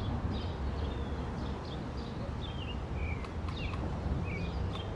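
Small birds chirping in short, repeated calls over a steady low outdoor rumble.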